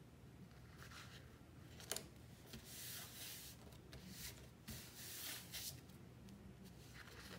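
Faint rustling and sliding of paper and cardstock being handled and laid in place, in several short swishes, with one sharp tap about two seconds in.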